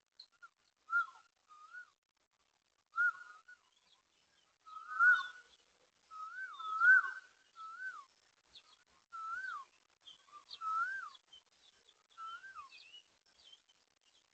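A series of about a dozen clear whistled notes, each swooping up and then down in pitch, coming at an uneven pace and loudest in the middle of the stretch, with faint, thin chirps above them.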